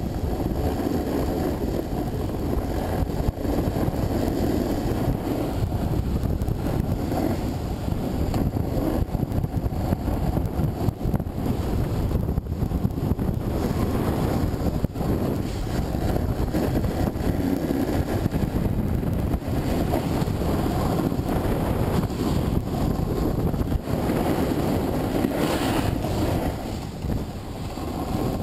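Wind buffeting an action camera's microphone during a descent down a groomed ski piste. It is a steady, unbroken low rush with the hiss of snow under the rider mixed in.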